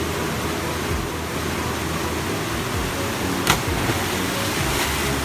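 Steady rush of flowing water, with a single sharp click about three and a half seconds in.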